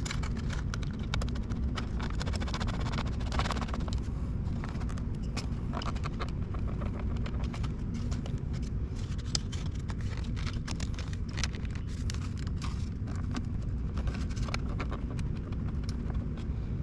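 Irregular clicking and knocking of the plastic headlight switch assembly and dash trim as it is wiggled loose behind the dashboard, with a steady low hum underneath.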